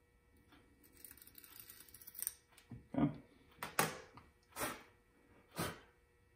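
Deburring tool scraping faintly around the inner edge of a freshly cut steerer tube, then four sharp knocks about a second apart as tools and metal parts are set down on a wooden workbench.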